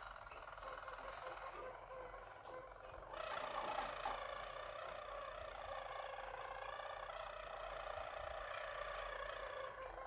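Harzer Roller canaries singing their rolling, trilled song in long unbroken phrases, growing louder about three seconds in.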